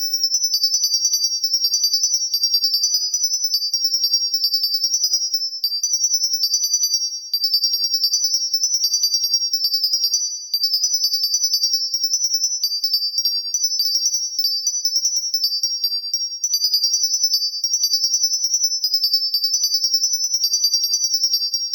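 Music of rapid, very high-pitched synthesizer or keyboard notes in a quick tinkling run, with brief breaks about seven and ten seconds in.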